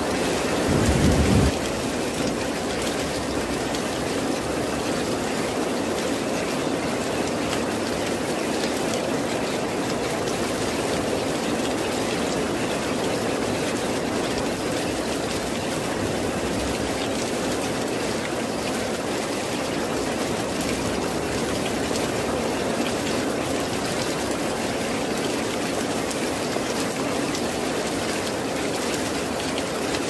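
Heavy rain falling steadily on dense leafy vegetation, an even rushing hiss throughout. About a second in, a brief low rumble stands out beneath it.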